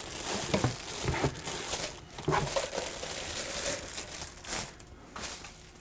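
Clear plastic packaging bag crinkling and rustling as a juicer part is handled and pulled out of it. The irregular crackle eases off near the end.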